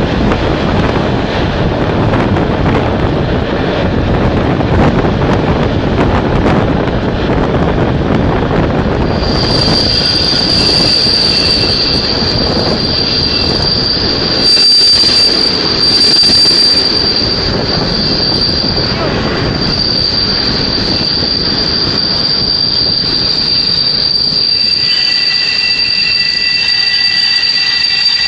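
TLK Dolnoślązak passenger train rolling and braking into a station. About a third of the way in, a steady high-pitched squeal sets in and holds. Near the end a second, lower squeal joins while the rolling rumble dies away as the train slows almost to a stop.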